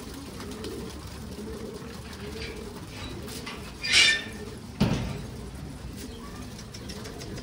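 Domestic pigeons cooing continuously from a loft flock. About four seconds in there is a short, sharp loud noise, followed by a thump.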